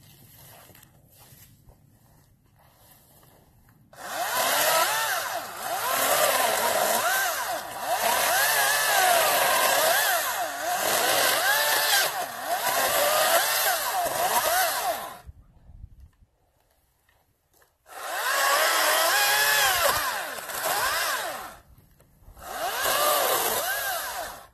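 Greenworks 40-volt DigiPro brushless battery chainsaw cutting pine limbs. A few seconds of faint rustling come first, then one long cut of about eleven seconds in which the motor's whine dips and recovers in pitch as the chain bites. After a short stop come two shorter cuts.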